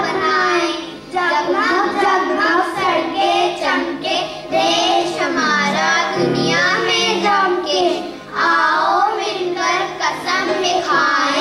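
Group of young children singing a song together into stage microphones, with music accompanying them.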